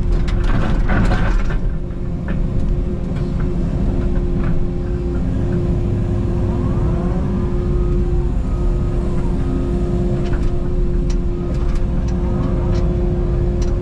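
Takeuchi TB290 mini excavator's diesel engine running steadily under load with a constant whine, while the machine digs in rocky ground, with a few knocks near the start and again near the end.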